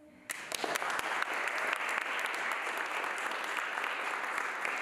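An audience applauding, with dense clapping that starts suddenly about a third of a second in and then holds steady.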